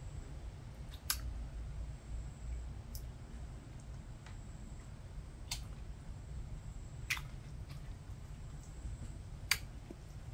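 Loaches in a shallow muddy puddle making a handful of small sharp plops at the water surface, about five spread out over several seconds, over a low steady rumble.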